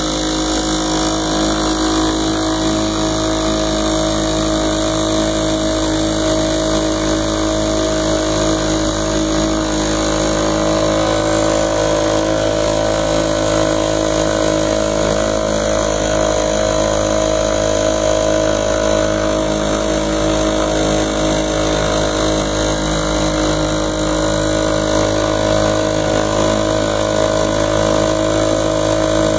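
1970 Chrysler 3.6 HP two-stroke outboard motor running steadily under way, holding one even engine note with no change in speed.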